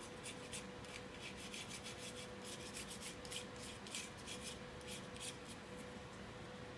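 A toothbrush rubbing over the greased metal slide of a KSC Glock 19 airsoft pistol in quick, irregular scrubbing strokes, taking off the excess grease.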